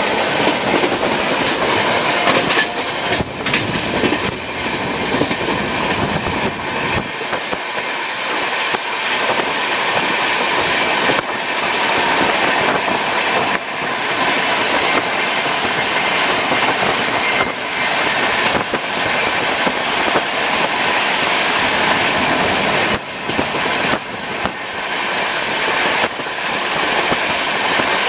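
Shatabdi Express LHB coaches running at speed: a steady rumble and rush of wheels on rail, broken by a few sharp clicks at irregular moments.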